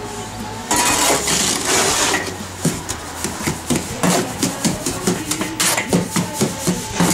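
Flat shovel scraping and chopping through damp render mix in a plastic wheelbarrow, mixing it. From about three seconds in come quick repeated strokes, about four a second.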